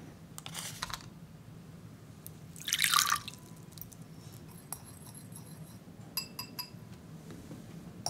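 Water poured into a clear glass bowl in one short splash, followed a few seconds later by a few light clinks and drips ringing on the glass.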